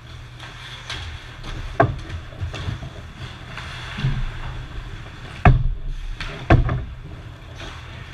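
Ice hockey play close to the goal: skates scraping the ice and sticks and puck knocking, with three sharp knocks, the loudest two about five and a half and six and a half seconds in. A steady low hum of the rink runs underneath.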